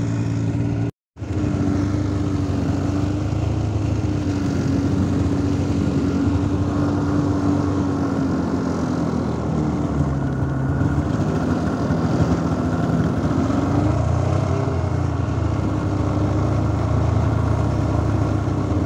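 Snowmobile engine running steadily, heard from the machine's own seat: a held drone whose pitch wavers a little, over a low rumble. The sound cuts out briefly about a second in.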